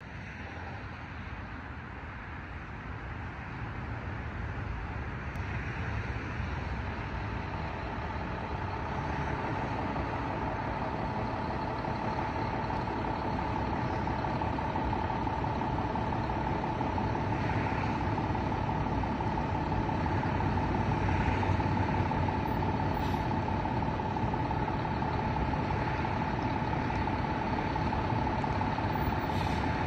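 Fire engine's diesel engine running with a low rumble that grows louder as the station's bay door opens. A steady high-pitched tone joins it about eight seconds in and holds.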